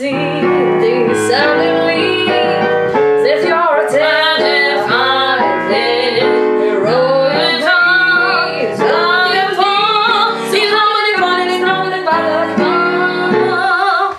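A woman sings a jazz song over an instrumental accompaniment, and both stop suddenly at the end.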